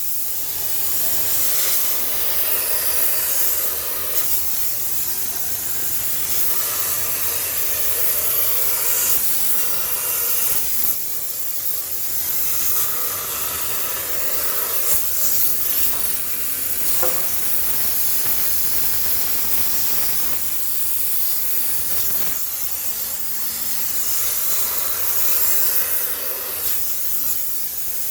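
High-pressure steam cleaner jetting steam with a steady hiss that swells and dips as the nozzle is worked over a washing machine to sterilize it.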